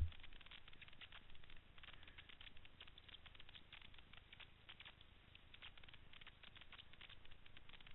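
Near silence with faint, irregular clicking and crackling; the dirt bike's engine is not running.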